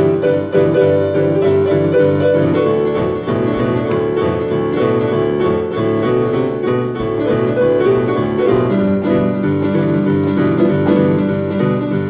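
Piano solo in the instrumental break of a country song, playing over a steady beat.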